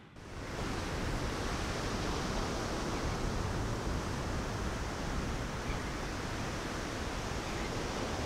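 Steady rushing outdoor wind noise with no distinct events, coming in after a brief drop in level at the very start.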